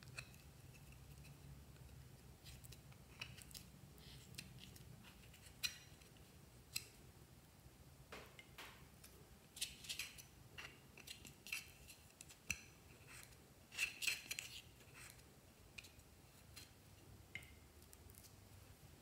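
Plastic spatula scraping pressed eyeshadow out of a compact and tapping against a glass dish: scattered light clicks and short scrapes, busiest about halfway through and again near the three-quarter mark.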